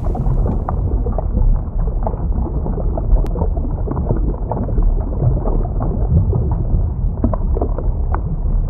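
Loud, steady low rumbling noise with scattered crackles and clicks, cutting off abruptly at the end.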